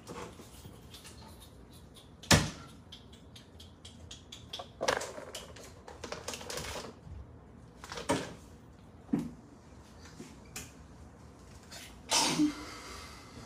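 Kitchen handling clatter: cupboard doors and things being moved on the counter, with one sharp knock about two seconds in and scattered knocks and clunks after it.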